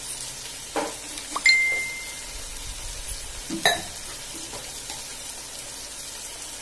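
Tomato-and-onion masala frying in oil in a pan with a steady sizzle. A few utensil knocks and clinks break in; the loudest is a sharp clink about a second and a half in with a short ringing tone, and another knock comes past the halfway point.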